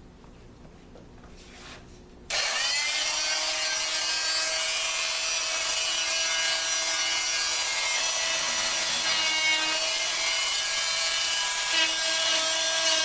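A power saw starts abruptly about two seconds in and runs steadily with a constant motor whine, cutting back a wooden wall stud.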